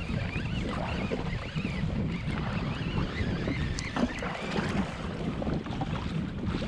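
Steady wind buffeting the microphone over sea water lapping against a jet ski's hull, with a few faint clicks.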